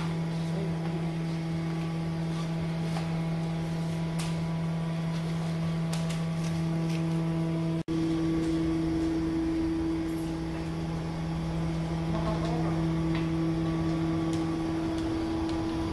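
A steady low machine hum with a few faint clicks over it, broken off for an instant about halfway through.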